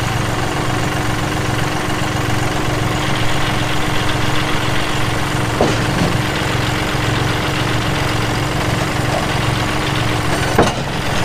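An engine idling steadily with an even low hum. There is a faint knock about halfway through and a sharper one near the end.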